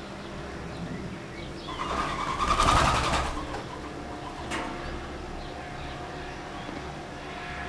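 Quiet outdoor ambience with a steady low hum and faint bird chirps; about two seconds in, a brief rushing whoosh swells up and fades within about a second and a half, followed by a single sharp click.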